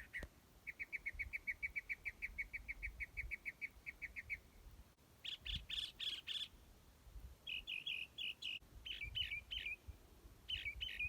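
Northern mockingbird singing: a fast run of one note repeated about seven times a second, then a brief higher, buzzier phrase, then several short phrases of varied notes, each different from the last.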